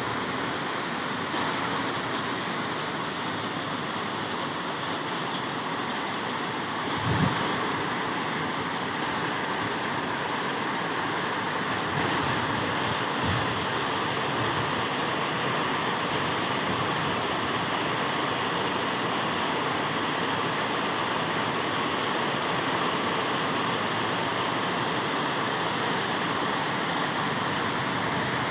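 Heavy rain pouring steadily in strong wind, a dense even hiss, with two brief low thumps along the way.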